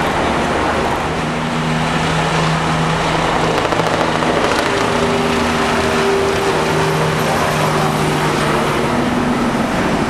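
FDNY fire apparatus engines and pumps running steadily: a loud, dense drone with a few held low tones that come in about a second in and change pitch around the middle.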